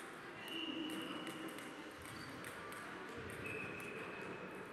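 Table tennis balls clicking irregularly off tables and bats at several tables around a large, echoing sports hall, with two brief high squeaks.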